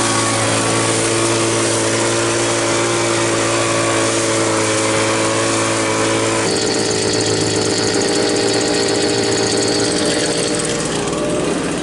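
Homelite two-stroke gas leaf blower running after being revived from years of sitting, a loud, noisy engine note. About halfway through its pitch shifts and a high whine comes in.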